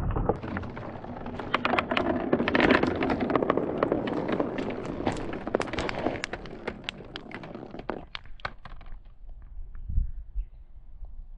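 Many marbles rolling down a plastic track and dropping into a stone-lined hole, clicking and clattering against each other in a dense run that thins to a few scattered clicks over the last few seconds.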